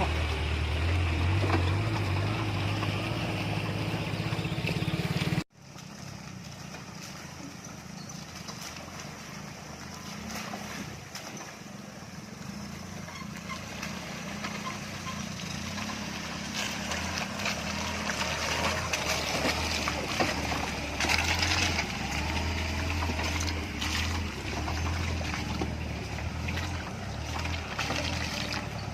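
Off-road car's engine running under way, a low steady hum with road noise. About five seconds in the sound cuts off abruptly and resumes quieter, then grows slowly louder.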